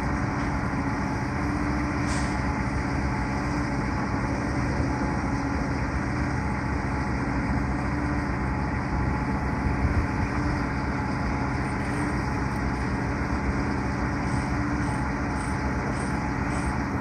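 Heavy diesel engine running steadily at idle: an even low rumble with a steady hum that does not change.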